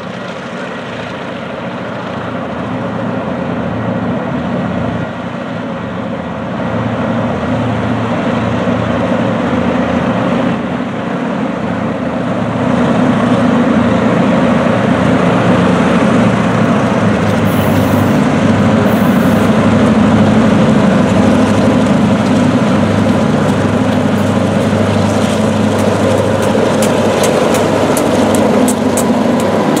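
EMD diesel locomotives led by a GP38-2, with its 16-cylinder 645 engine, working hard to haul a freight train up a grade, growing louder as they approach and come alongside. Near the end there is a rapid run of clicks, about three a second, as the locomotives pass.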